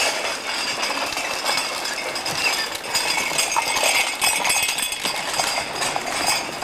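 Playground din: children's distant voices, and the rattle of a ride-on toy's plastic wheels on asphalt as it passes close.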